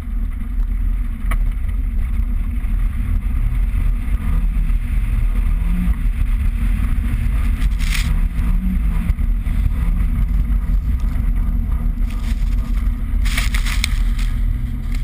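A Rover 214 sliding through snow: a loud low rumble of engine and wind on a camera mounted outside the car, with the engine note rising and falling. Bursts of hiss come about eight seconds in and near the end, the later one as snow sprays up over the car.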